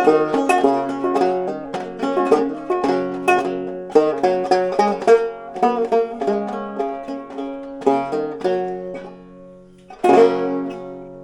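Stromberg Cuppophone banjo being played: a run of plucked notes and strummed chords ringing out, dying away about nine seconds in before a fresh strum. It is being played to check the sound after a string's nut slot was shimmed with a slip of paper.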